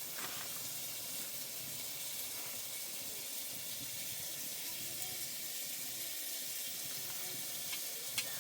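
A steady hiss, with a short click near the end.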